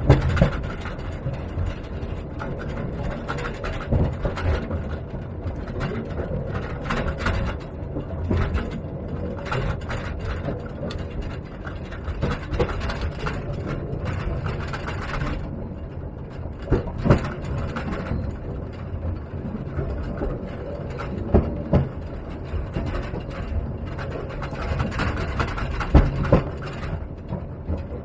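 Small electric mine trolley train running along narrow-gauge track: a steady low rumble of the wheels with irregular rattling and clattering, and a few sharper knocks.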